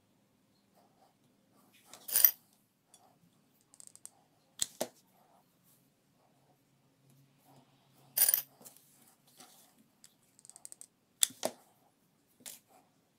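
Hard crystal-look beads clinking on glass as they are picked up and pressed onto the rim of a mirror: a handful of separate clinks and short rattles a few seconds apart, the loudest about two seconds in and again about eight seconds in.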